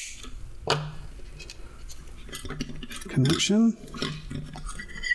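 Light clicks and rattles of stranded hookup wire and plastic wire spools being handled on a workbench while lengths of wire are pulled off and measured.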